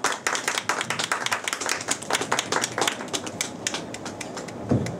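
Audience clapping, dense at first and thinning out over the last second or two, with a single dull thump near the end.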